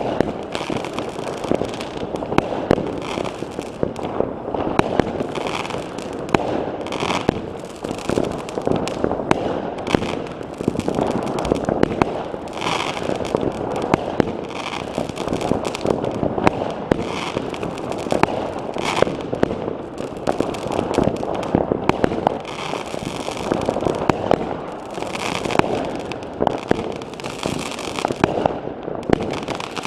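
Many fireworks and firecrackers going off all around at once: a continuous din of crackling with sharp bangs coming thick and fast, never letting up.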